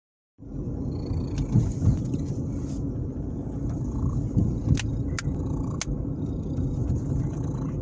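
Low, steady road and engine rumble inside a moving car's cabin, with a few scattered light clicks.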